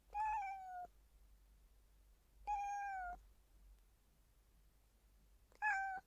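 Domestic cat meowing three times, a few seconds apart: each meow is short and falls a little in pitch at its end, the last one briefest.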